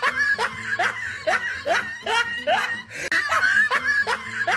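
Laughter, likely a laugh sound effect added at the end of the skit: a quick, even string of short rising laughs, two or three a second, that seems to loop and start over partway through.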